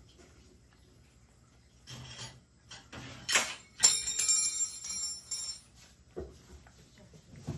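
A cat eating wet food from a ceramic bowl, with short licking and chewing noises. About four seconds in, a sharp clink rings out with several high tones and fades over about two seconds; this is the loudest sound.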